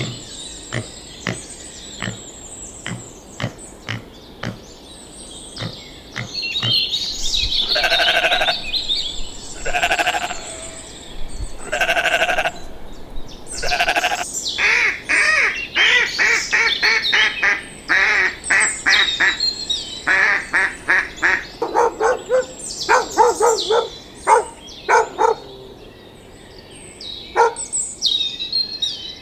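Small livestock bleating: three long bleats about two seconds apart, then a run of quick, quavering bleats. Birds chirp faintly in the background, and a few light clicks are heard before the bleating starts.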